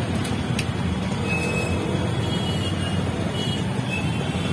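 Busy street traffic: motorcycle and scooter engines running close by in slow, crowded traffic, a steady low rumble.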